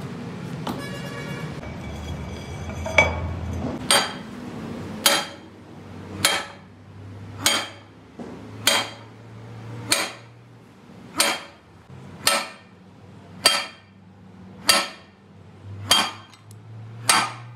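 Steady, evenly paced hammer blows on a steel pipe slipped over a rear axle housing spindle, about one ringing metal strike a second, starting a few seconds in: the pipe is being used as a drift to drive a bush home onto the spindle.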